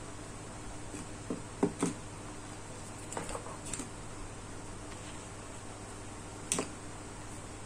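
Cables and small plastic drone accessories being handled, giving a few sharp clicks and taps: three close together about a second and a half in, a quick run of softer ticks around three seconds, and one more about six and a half seconds in. A steady low hum runs under them.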